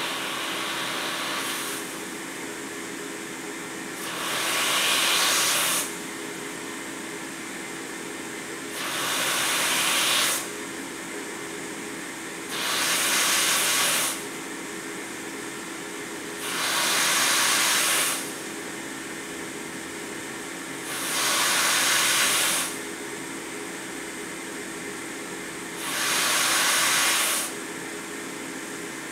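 Quantum PSV pressure support ventilator running: a steady blower hum with a louder rush of air for each breath it delivers, about six breaths of some two seconds each, one every four to five seconds. The breaths are pushed against its air outlet partly blocked with tape to simulate an attached patient.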